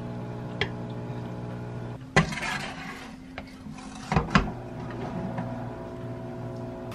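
Wooden spatula knocking and scraping against a wok and a ceramic bowl as stir-fried bean sprouts are served out: one sharp knock with a brief scrape about two seconds in, then two quick knocks about two seconds later.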